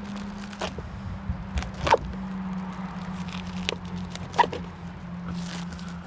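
Plastic stretch wrap crinkling and tearing as it is pulled by hand off cardboard packing, with several sharp crackles, the loudest about two seconds in and again past four seconds. A steady low hum runs underneath.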